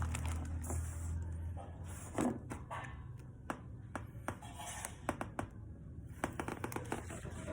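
Scattered light clicks and knocks with a brief rustle, over a low hum that fades out in the first second and a half.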